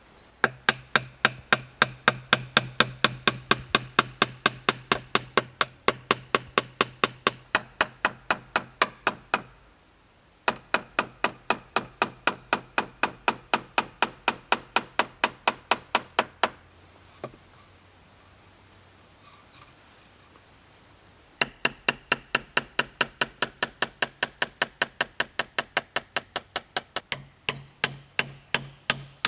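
Rapid, even strikes of a tool chopping into wood, about four a second, in three long runs broken by short pauses.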